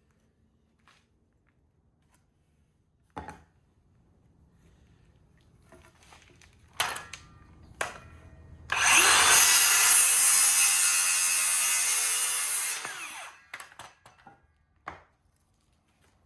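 A power saw cuts through a pressure-treated lumber board for about four seconds, starting about nine seconds in. Before it come a few knocks of the board being handled, and after it the saw runs down.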